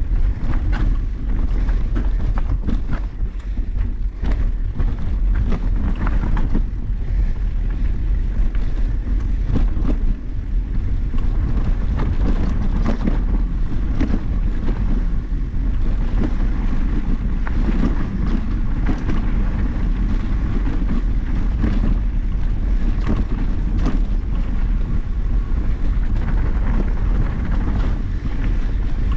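Mountain bike rolling over a rough trail: steady wind rumble on the microphone, with frequent knocks and rattles from the tyres and bike over the ground.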